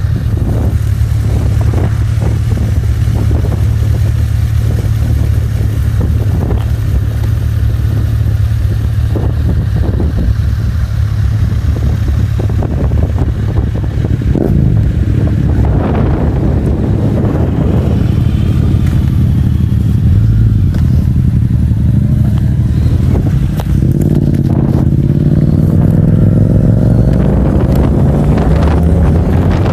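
Motorcycle engine running under way, with wind buffeting the microphone. In the second half the engine note rises as the bike speeds up.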